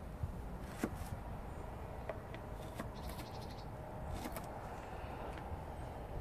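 A kitchen knife slicing shallots on a plastic cutting board: a few soft, irregular knife taps against the board over a steady low background rumble.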